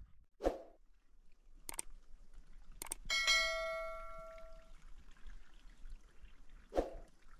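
A single metallic ring, a struck bell or piece of metal, fading out over about a second and a half, with a few sharp clicks and soft knocks before and after it.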